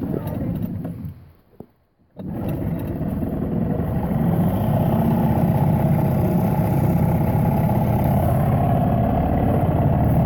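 Small boat's outboard motor running steadily, with a brief drop-out about two seconds in.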